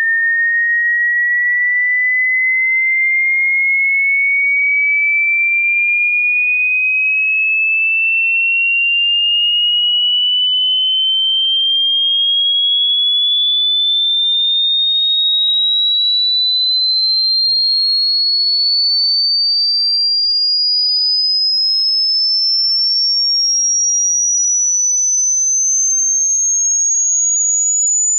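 Electronic dog-whistle sound effect: a single pure tone that rises slowly and evenly in pitch, from high to very high, at a constant loudness without a break.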